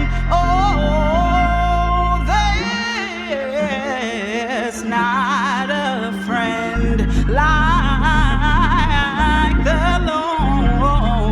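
Gospel worship singing: wordless, melismatic vocal runs with heavy vibrato over a sampled Hammond A100 organ (the Gospel Organ virtual instrument). The low organ and bass notes drop out about two and a half seconds in and come back about four seconds later.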